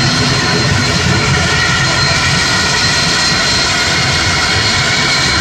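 ATR 72 twin-turboprop's Pratt & Whitney PW127 engines and propellers running at high power on the takeoff roll: a loud, steady propeller drone with a thin high whine above it.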